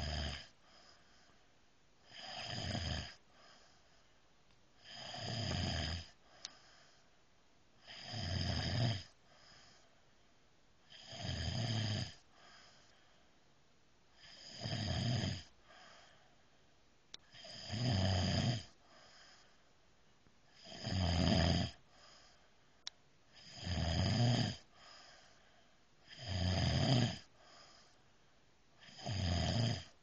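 A man snoring in deep sleep: about ten snores, each roughly a second long, coming evenly about every three seconds with quiet breathing between.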